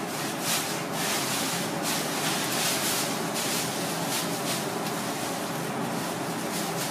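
Irregular short scraping strokes of a knife working a razor fish's skin off the flesh on a plastic cutting board, over a steady background noise with a faint hum.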